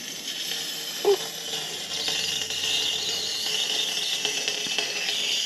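CO2 cartridge inflator hissing steadily as it refills a punctured tubeless mountain-bike tyre through its valve, with a short knock about a second in.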